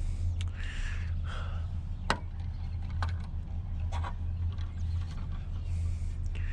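Scrap items being handled: a few sharp clicks and knocks, the loudest about two seconds in, over a steady low hum.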